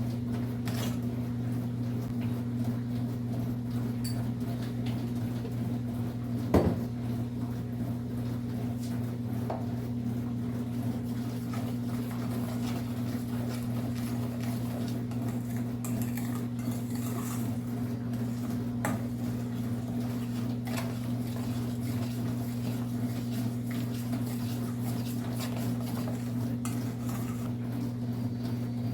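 A small electric motor, switched on just before, hums steadily, with light clinks of dishes and utensils and one sharp knock about six and a half seconds in.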